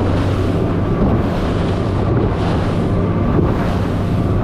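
Outboard-powered bay boat running at speed through light chop: a steady engine drone under wind rushing over the microphone and water spraying off the hull.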